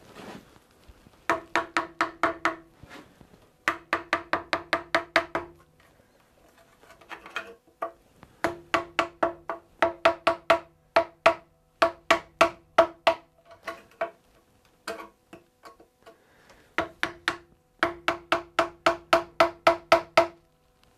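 A wide flat metal blade being tapped in under the metal foot on the end of a wooden chair leg to pry the foot up and level a rocking chair. Runs of quick, ringing metallic taps, about six a second, with short pauses between the runs.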